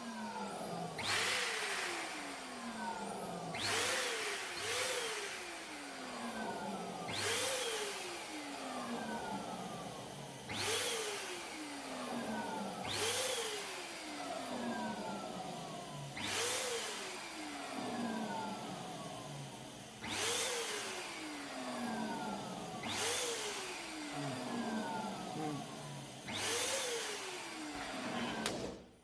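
Electric balloon pump switched on in short bursts about nine times, each time whirring up quickly and then winding down with a falling whine and rushing air.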